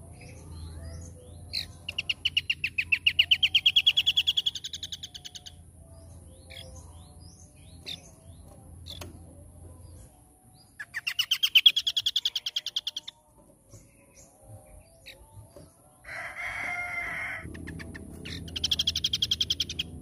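Scaly-crowned babbler (asi topi sisik) singing. It gives three bouts of rapid repeated notes that rise in pitch, the first lasting nearly four seconds and the others shorter. A short harsh, rasping sound comes in between the last two bouts.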